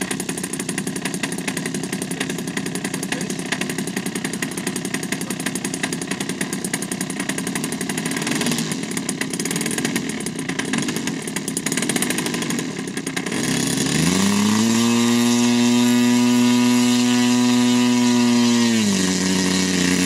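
Model airplane engine running on the ground, at first a rough, noisy run. About two-thirds of the way through it is throttled up to a steady high-pitched run for about five seconds, then eased back to a lower pitch near the end.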